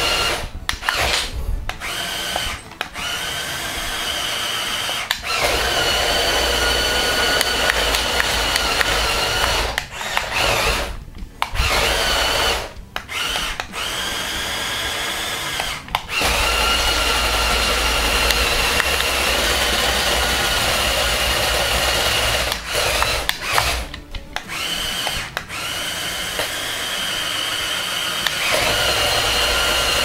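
Electric motors and plastic gearing of a remote-controlled CADA C61056 brick-built bulldozer whining steadily under a low rumble as it drives on its tracks. It stops and restarts about ten times as the controls are let go and pressed again.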